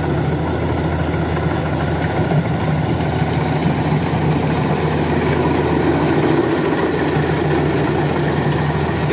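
Kubota DC-93 rice combine harvester running steadily while cutting and threshing standing rice: a constant low diesel engine hum under the clatter of its cutter and threshing drum.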